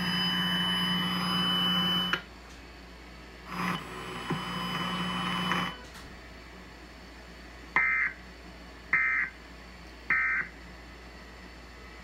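Emergency Alert System end-of-message data tones through a TV speaker: three short bursts of digital data tones about a second apart, marking the end of the alert. Before them, a steady buzzy hum with a high whine stops about two seconds in and returns for about two seconds near the middle.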